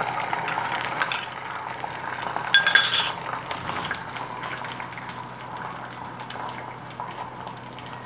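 Omelette mixture sizzling in hot oil in a Vinod tri-ply stainless steel fry pan, loudest as the egg goes in and settling to a steady, lower hiss. A light click about a second in and a louder ringing metallic clink about two and a half seconds in, as the bowl or utensil knocks against the steel pan.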